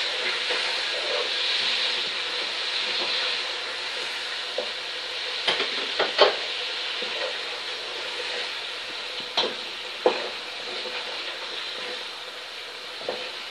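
Chicken pieces frying in oil with ginger-garlic paste and spices, sizzling steadily as a wooden spoon stirs them through the masala in the bhuna stage. A few sharp knocks of the spoon against the pot sound through the sizzle, and the sizzle eases slightly toward the end.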